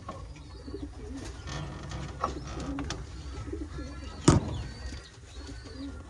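Racing pigeons cooing in the loft: low, repeated coos. One sharp knock about four seconds in is the loudest sound.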